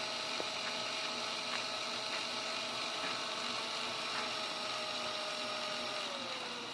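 Small high-speed electric drill running with a steady whine while drilling into a thumbnail to let out blood trapped beneath it. The whine drops in pitch about six seconds in.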